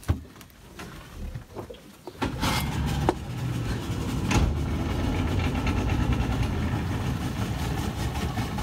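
A few light knocks, then a Mercury outboard motor starts about two seconds in and runs steadily.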